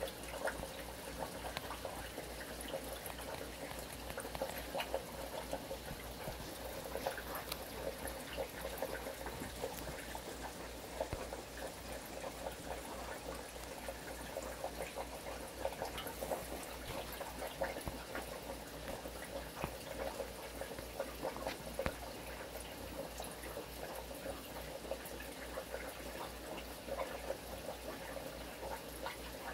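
Aquarium water bubbling and trickling steadily, with many small ticks of splashing and a low steady hum underneath.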